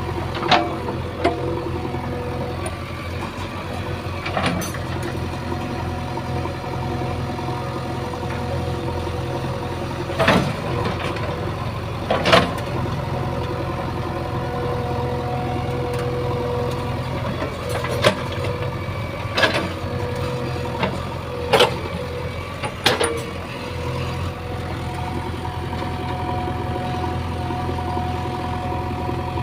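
JCB 3DX backhoe loader's diesel engine running steadily, with sharp clanks every few seconds, the loudest about ten and twelve seconds in.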